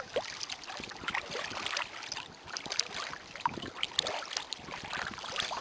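Water lapping and splashing against the hull of a small boat moving slowly, with many small irregular splashes and ticks.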